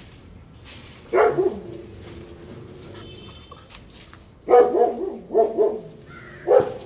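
Puppies barking in short, high yaps: a couple about a second in, then a quick run of four or five barks in the last two and a half seconds.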